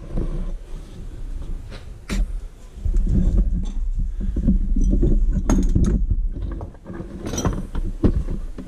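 Handling noise from the camera being picked up and moved closer: a low rumble from the mount being gripped, with scattered clicks, knocks and light clattering, the sharpest about two seconds in, around five and a half seconds, and again near seven and a half seconds.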